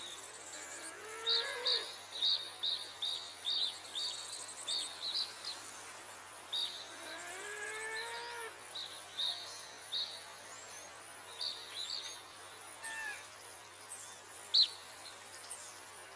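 Small birds chirping in quick runs of short high chirps. Two fainter, drawn-out animal calls sound lower down, about a second and a half in and again around seven to eight seconds.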